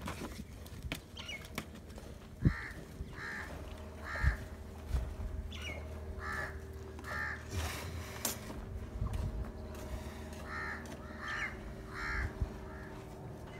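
Crows cawing in short runs of two or three calls, several runs in all, over a low rumble with a few dull thumps.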